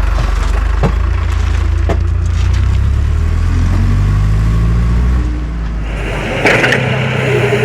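Tractor diesel engine running as its backhoe attachment digs and loads mud, its pitch shifting in the middle, with a few sharp knocks early on. About six seconds in a louder hissing, scraping noise comes in with a couple of sharp cracks.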